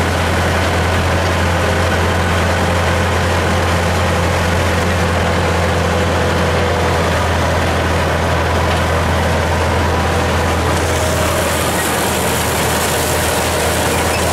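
Farm tractor engine running steadily while pulling a hay mower through alfalfa: a constant low hum. A high hiss joins in about eleven seconds in.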